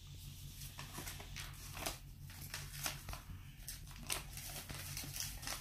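Paper rustling and crinkling in irregular short bursts as sheets are handled and rubbed with a glue stick, over a faint steady low hum.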